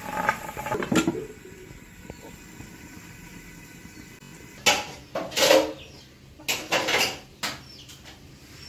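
Pan lid being put on a pan of simmering curry and handled, with a clink about a second in and a few louder clanks past the middle; a faint hiss from the cooking pan in between.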